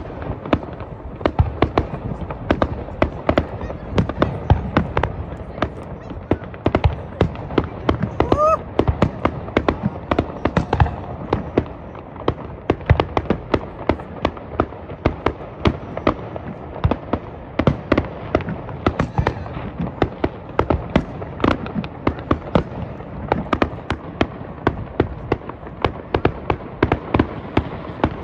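Aerial fireworks bursting in quick succession: a dense, continuous run of bangs and crackles from the display.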